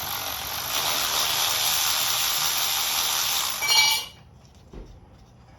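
A steady spraying hiss lasts about four seconds, ending in a short squeal just before it cuts off suddenly.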